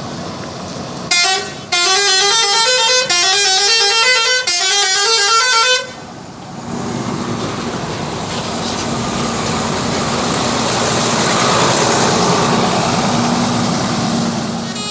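Indonesian 'telolet' bus horn, a sequenced set of air-horn trumpets, playing three quick rising runs of notes for about five seconds. It then gives way to a bus's engine and road noise, which swells with a low steady hum as the bus passes.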